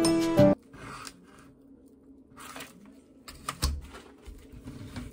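Background music cuts off about half a second in. After that comes quiet handling of a head of napa cabbage at a kitchen counter: light leafy rustling and crackling, and a dull knock about three and a half seconds in.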